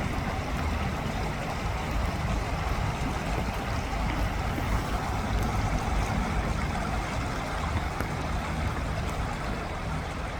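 Steady outdoor rushing noise, heaviest in a low rumble, with no music or voices.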